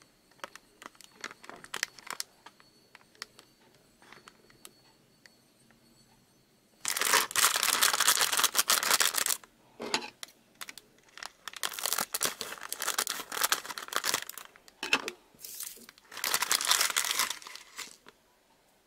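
Plastic candy-kit bag crinkling faintly as it is handled, then torn open with a loud ripping about seven seconds in, followed by several more bursts of tearing and crackling wrapper.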